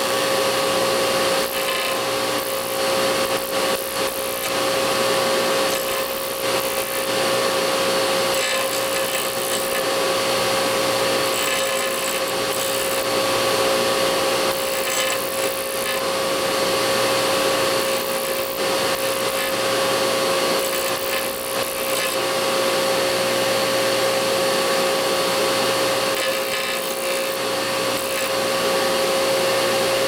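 Bench disc sander running with a steady motor hum while a steel bearing race is pressed against the abrasive disc to deburr its sharp edge. The grinding noise swells and eases repeatedly as the part is pressed on and eased off.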